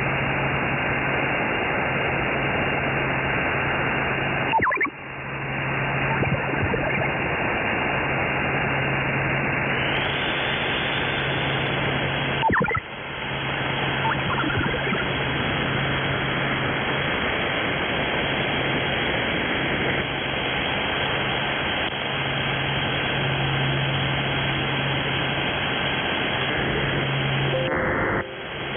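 Shortwave radio receiver tuned to 8120 kHz, giving out steady, muffled static hiss with a low buzzing drone that comes and goes. The sound drops out briefly with a click about five, thirteen and twenty-eight seconds in.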